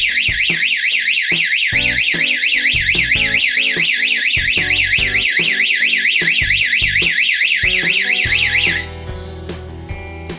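Electronic security alarm siren sounding a fast up-and-down warble, several sweeps a second, then cutting off suddenly near the end: the alarm's timed 10-second cycle ending with an automatic shut-off. Background music plays underneath.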